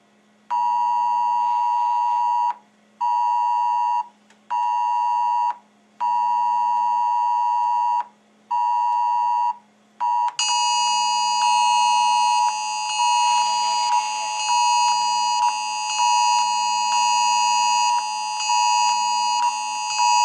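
Wireless Emergency Alert attention signal from smartphones for the nationwide test alert: a loud two-tone beep in a repeating long-short-short pattern. About ten seconds in, more phones join and the overlapping alerts run together into an almost unbroken tone.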